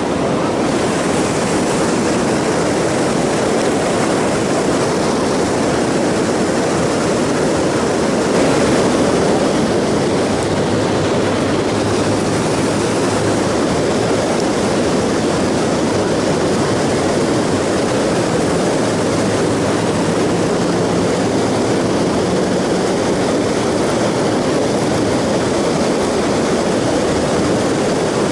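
Steady rushing of whitewater pouring over a low-head river dam and churning below it.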